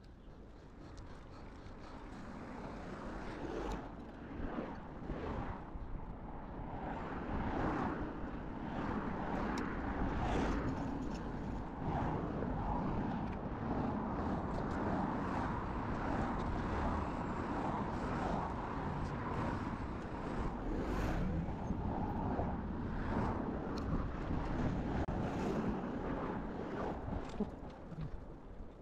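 Wind buffeting the microphone of a handlebar-view camera, mixed with road and tyre noise from a bicycle moving along a street, with frequent small knocks and rattles. It grows louder over the first several seconds, then holds steady.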